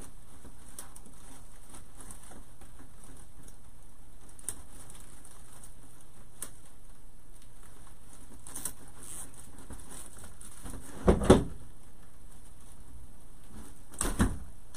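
Faint rustling and light crackling of grapevine twigs and ribbon as a bow's chenille-stem tie is worked through a grapevine wreath frame, with a louder knock about eleven seconds in and another near the end.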